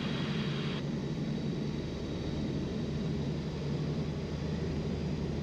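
Skyranger Swift 2 microlight's engine and propeller running steadily at low power with the throttle pulled back, a constant low hum under a steady hiss of airflow in the cockpit. Part of the higher hiss drops away about a second in.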